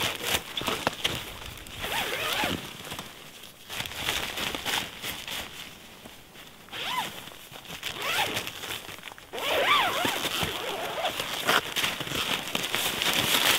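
Hot tent door zipper being run open in several pulls with short pauses, a rasping zip with sweeping pitch changes, along with the rustle of the tent's fabric door panel being handled.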